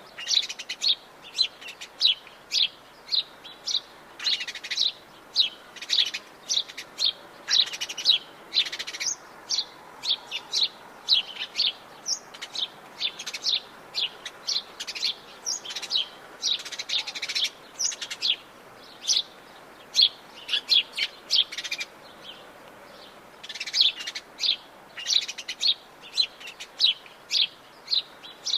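Birds chirping and singing, with quick runs of short, high chirps repeated many times over and a brief lull after about twenty seconds.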